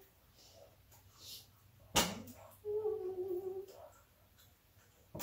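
A woman hums a short closed-mouth "mmm", held about a second and falling slightly, near the middle. A sharp click comes just before it, about two seconds in, and a shorter click near the end.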